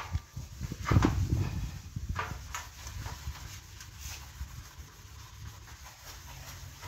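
Bombril steel-wool pad scrubbing a stainless-steel stovetop: a run of irregular scrubbing strokes, loudest about a second in.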